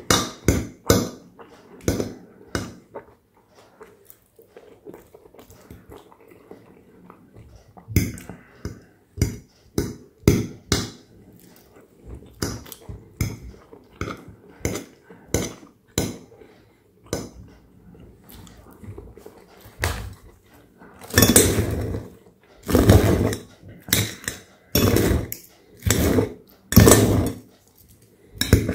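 Serrated table knife and fork clicking and scraping against a ceramic plate while cutting food. It starts as a run of short sharp clicks, and in the last several seconds it becomes longer, louder scraping strokes.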